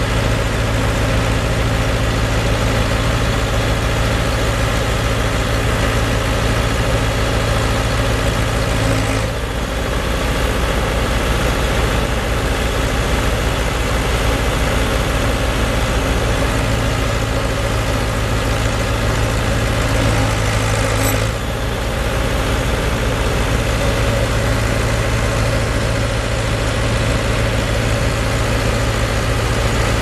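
The Ford diesel engine of a 1996 Ford 555D backhoe idling steadily, with two brief breaks about nine and twenty-one seconds in.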